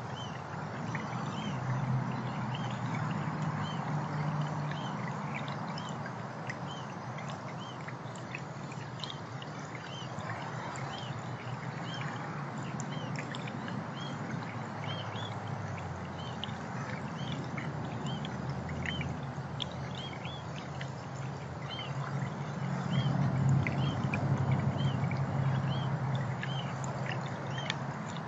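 Hummingbirds giving short, high chip notes, many of them in an irregular string, over a steady background hiss. A low hum swells twice, a few seconds in and again near the end.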